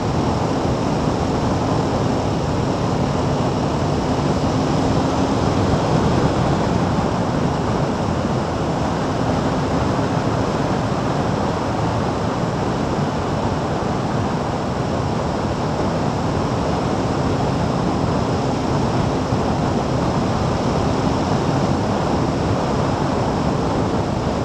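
Steady rush of wind and road noise from a vehicle travelling at constant speed, with a faint low hum held steady underneath.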